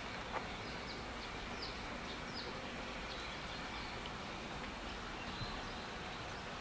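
Steady outdoor background noise, with a few short, high bird chirps about two seconds in and a faint click near the start.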